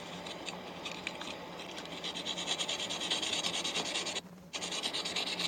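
Fine sandpaper rubbing by hand on a starter motor's commutator in quick back-and-forth strokes, cleaning off carbon left by the brushes. The strokes get louder about two seconds in and stop briefly near the end.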